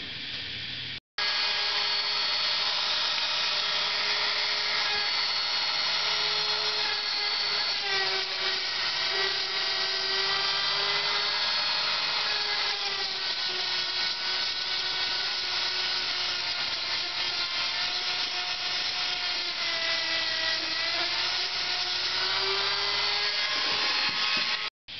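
Handheld power tool running with a wire-brush or sanding attachment, grinding rust and corrosion off a steel truck-frame ground point. It gives a steady whine that sags in pitch twice as it is pressed into the metal.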